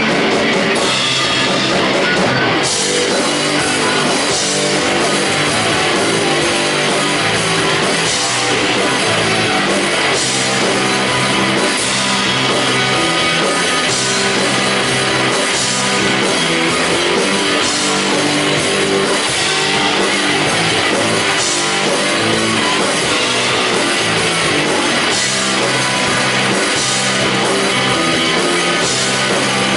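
Live rock band playing loud and steady on two electric guitars, bass guitar and a drum kit, with regular drum and cymbal hits; the sound of the full band shifts a couple of seconds in.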